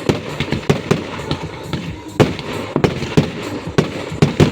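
Fireworks going off: an irregular run of sharp bangs, several a second, over a steady din of further bursts.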